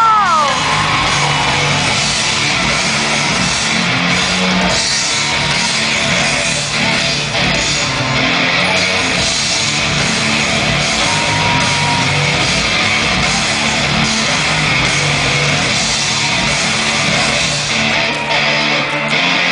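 Loud rock music with electric guitar, playing steadily without a break.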